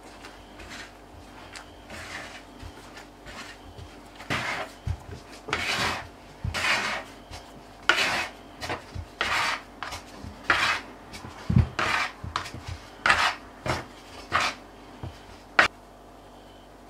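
A hand working sourdough bun dough in a bamboo bowl, kneading it and scraping it around the bowl: a string of irregular rubbing, scraping strokes, faint at first and louder and more frequent from about four seconds in.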